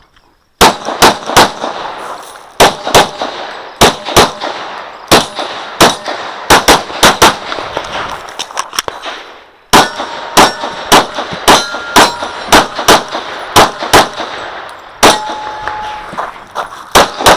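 Glock 35 pistol in .40 S&W firing rapid strings of loud shots, with a brief pause about nine seconds in before the shooting resumes. A few hits are followed by a short metallic ring from steel targets.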